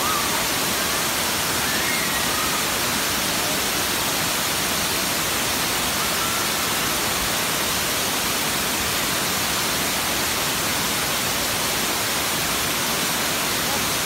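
Steady rushing of a wide curtain waterfall pouring down a rock face into a churning plunge pool: an even, unbroken hiss across all pitches.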